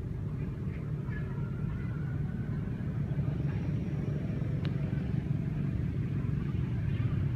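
A steady low rumble, even in level throughout.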